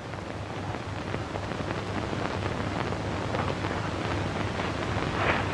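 Steady hiss with faint crackle from an old film soundtrack, growing slightly louder, with a short brighter sound near the end.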